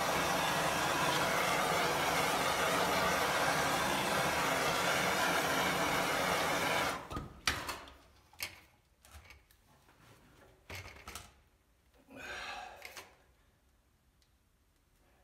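A small motor running steadily for about seven seconds, then cutting off suddenly, followed by a few scattered clicks and knocks.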